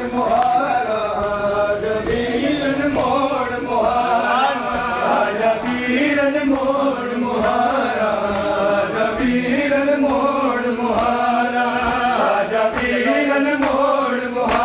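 Men's voices chanting a noha, a Shia mourning lament, in a long drawn-out melodic chant that goes on without a break.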